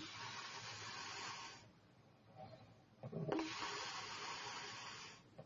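A sleeping woman snoring in slow breaths. A long breathy hiss comes first, then about three seconds in a short low snore, followed by another long hiss of about two seconds.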